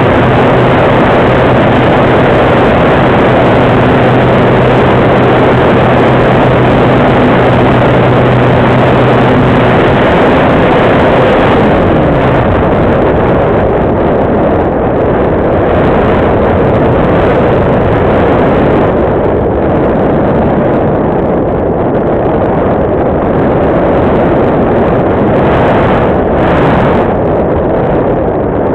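Radian Pro electric glider's brushless motor and propeller humming steadily, then spinning down and cutting out about ten to twelve seconds in as the motor is switched off for gliding. Heavy airflow rush over the onboard camera's microphone continues throughout.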